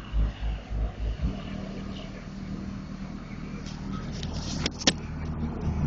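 Deep bass thumps from car subwoofers driven by an amplifier, about three a second, the kind of bass that flexes the car's window glass; they stop about a second in. A steady low hum follows, with one sharp click a little before the end.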